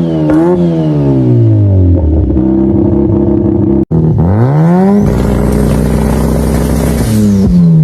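High-performance car engine revved and let fall repeatedly: the engine note drops off, is blipped up quickly again about four seconds in, holds steady, then falls away once more near the end.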